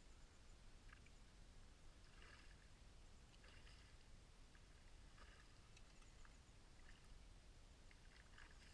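Near silence, with a few faint, brief water splashes now and then from a hooked fish at the surface of a shallow river.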